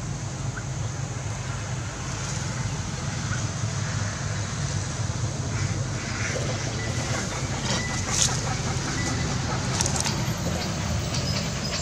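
Steady low rumble of outdoor background noise, with a few faint clicks in the second half.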